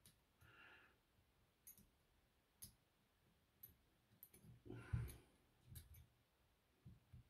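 Faint, scattered clicks with a short rustle about five seconds in: padlock keys and their plastic packaging being handled while trying to free the keys.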